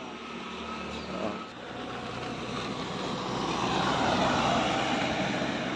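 A vehicle passing on the road: a steady rushing noise that grows louder to a peak about four seconds in, then begins to fade.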